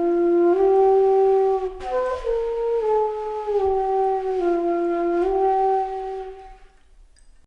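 A solo flute playing a slow melody of long held notes that climb over the first two seconds and then step gradually back down, fading out near the end.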